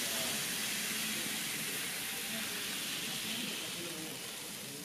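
N-gauge model train running past on the layout track: a steady hiss that fades slowly as it moves on, with faint voices underneath.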